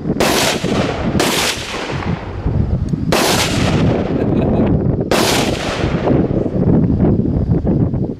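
Four rifle shots, the first two about a second apart and the others about two seconds apart, each trailing off in a long echo. A steady low rumble lies underneath.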